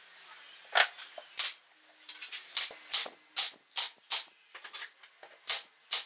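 Nail gun firing into the wooden roof of a birdhouse: about nine sharp, short shots at an uneven pace, several in quick runs a few tenths of a second apart.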